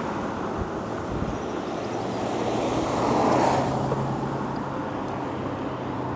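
Wind and road noise on a camera mounted to a Cyrusher Ovia e-bike as it is ridden along a road, with a steady low hum coming in about two seconds in. The noise swells briefly around three seconds in.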